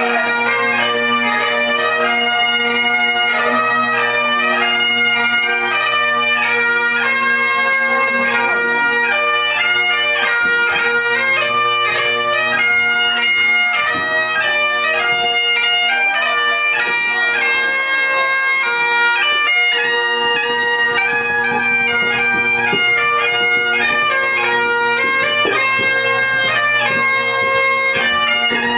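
Great Highland bagpipe playing a tune: a steady drone under a melody that steps from note to note.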